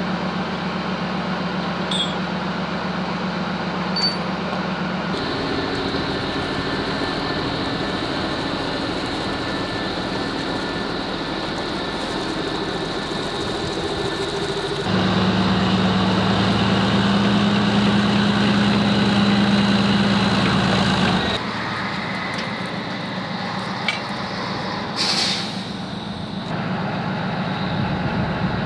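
Heavy military vehicle diesel engines running steadily, the hum changing pitch and level abruptly several times and loudest for several seconds in the middle. A short hiss comes near the end.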